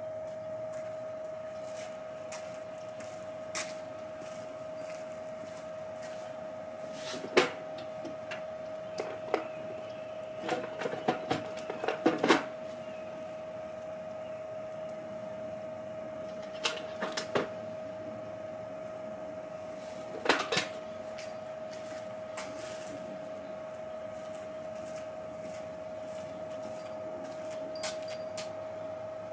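Scattered knocks and clatter of things being handled, in clusters about 7, 11–12, 17 and 20 seconds in, over a steady high-pitched hum.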